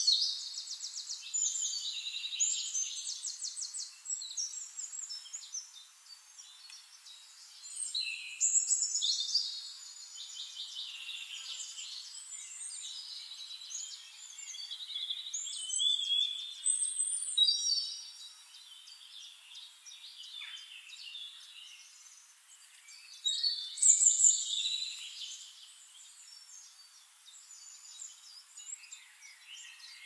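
Several songbirds singing, with louder bursts of fast trills and chirps every several seconds and quieter twittering between.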